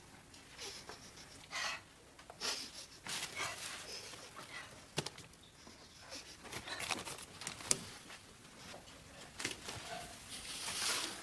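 Faint rustling and shifting of clothes and packages as someone rummages through a wardrobe, with a couple of sharp clicks or knocks about halfway through.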